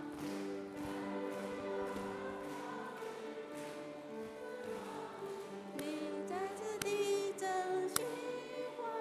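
A church congregation singing a welcome song together.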